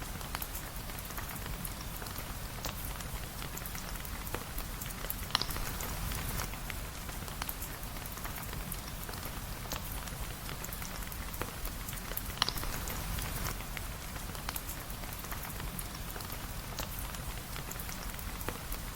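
Steady rain falling on a surface, a continuous patter with a low rumble under it. Scattered sharp ticks run through it, and two louder pops come about five and twelve seconds in.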